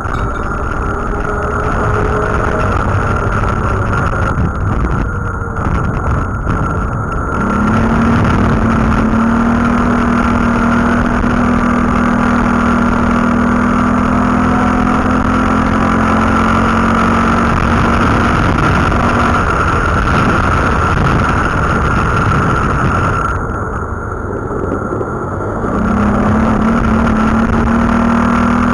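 Quad (ATV) engine running as it is ridden, heard from the riding quad with wind rushing over the microphone. The engine holds a steady high pitch for about twelve seconds, eases off a little after halfway, and picks up again near the end.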